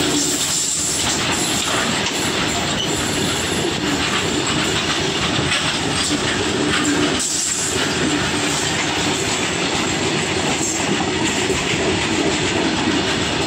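Coal freight train's open steel wagons rolling past close by: a steady, loud rumble and clatter of wheels on the rails.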